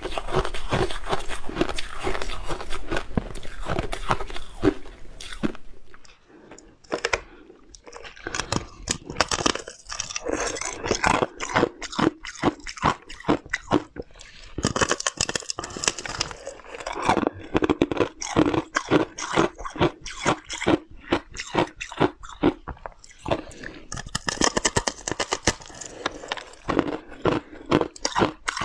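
Close-miked biting and chewing of powdery freezer-frost ice, each bite a crisp crunch. Dense crunching at first, a quieter stretch about six seconds in, then steady crunching bites, about two or three a second.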